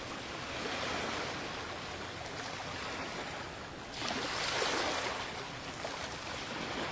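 Water rushing and splashing past the hull of a sailing yacht under way, a steady wash that swells about four seconds in.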